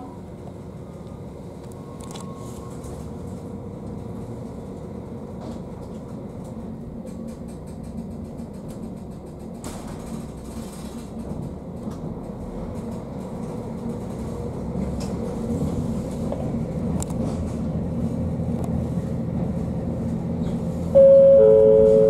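Diesel railcar heard from inside, pulling away from the station: a steady low engine and running rumble that grows louder through the second half. About a second before the end, a two-note falling chime sounds, the kind that introduces the automated on-board announcement.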